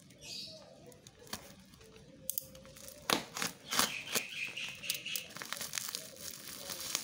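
Plastic parcel wrapping and bubble wrap crinkling and tearing as a small parcel is torn open by hand, with a few sharp rips between about three and four seconds in, then steady crackling.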